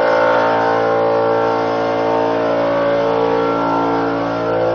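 A motor or engine running steadily with a droning hum, its pitch wavering slightly.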